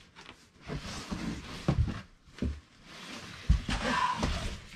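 A large cardboard shipping box being lifted and shifted about, with rustling and scraping of the cardboard and several irregular knocks and thumps.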